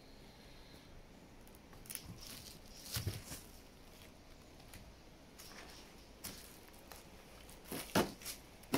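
Footsteps crunching and scuffing over debris, with a few scattered knocks, the loudest near the end.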